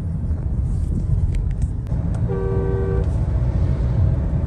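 Inside the cabin of a Mahindra XUV700 accelerating in sixth gear, a steady low engine and road rumble. A single short car horn blast sounds a little over two seconds in.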